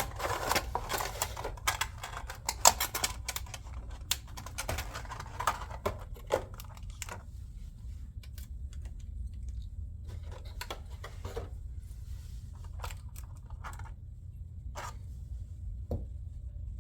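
A model airplane's box and packaging being opened by hand: a busy run of rustling, tearing and sharp clicks for the first several seconds, then scattered single taps and clicks as the handling slows. A steady low hum runs underneath.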